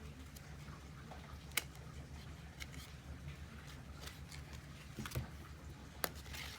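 Glossy gilded-edge Lenormand cards being handled and pulled apart, faint ticks and slides with two sharper card clicks, about a second and a half in and near the end, over a low steady hum.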